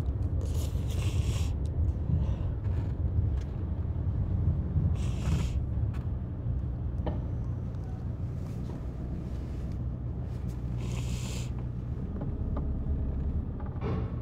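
Road noise inside a moving car: a steady low rumble of engine and tyres, with three short hissing sounds, about half a second, five seconds and eleven seconds in.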